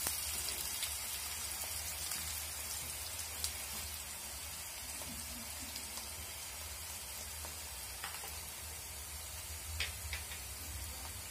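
Chopped onions, curry leaves and dried red chilies frying in hot oil in a pan: a steady sizzle, with a few faint knocks of a wooden spatula as they are stirred while browning.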